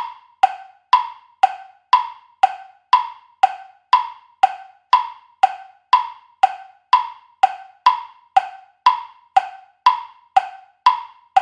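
Countdown-timer tick-tock sound effect of the quiz clock, giving time to answer. It is an even tick-tock of about two clicks a second, alternating between a higher and a lower wood-block-like click.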